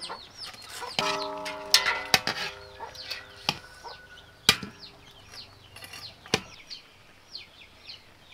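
A metal ladle knocking sharply against a metal wok five or six times, while chickens call and small birds chirp rapidly and steadily in the background; one drawn-out pitched call is heard from about one to three seconds in.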